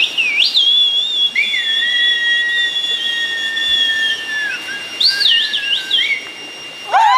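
Whistling blown through cupped hands: two long held whistles at different pitches, the higher starting first and the lower joining about a second and a half in, each swooping in pitch as it starts and ends. A short warbling flourish of rising and falling notes comes about five seconds in.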